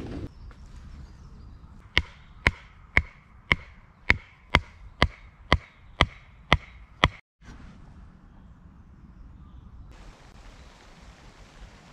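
A wooden mallet driving a wooden tent peg into the ground: about eleven sharp, even strikes, roughly two a second. After a break, rain falling faintly on the canvas tent in the last couple of seconds.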